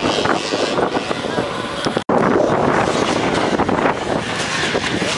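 Wind buffeting the microphone, a loud rough rumble and hiss, with the audio cutting out for an instant about two seconds in.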